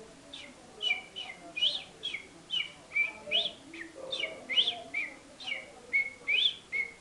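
A man whistling an imitation of a small songbird: a rapid series of short, falling chirps, two to three a second.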